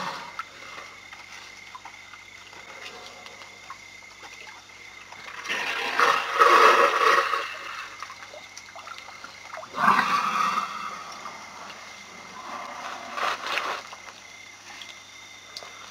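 Elephants calling to each other at close range: two loud, rough calls about six and ten seconds in, and a weaker one near the end.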